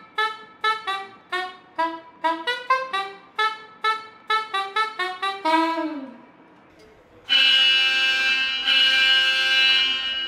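A small brass horn plays a quick run of short, separate notes, ending in one note that slides down in pitch about six seconds in. About a second later a loud, steady alarm tone comes in and holds for about three seconds, the call-out alarm of a fire station.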